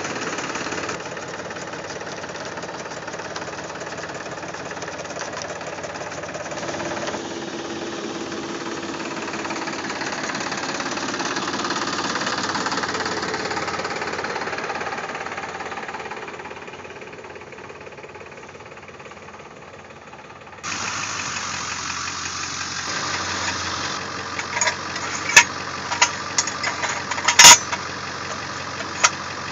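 An engine runs steadily, its level swelling and easing. Near the end come a series of sharp metal clanks, about a dozen, as a steel ground anchor is handled and set down.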